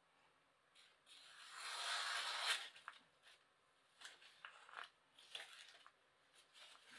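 A sheet of paper rustles as it slices down onto the upturned edge of a Daovua Chinese chef knife in a standing paper cut test. A swelling rustle builds for about a second and a half and peaks about two and a half seconds in, followed by scattered light crackles. The paper is only partly cut, so the edge does not fully pass the test.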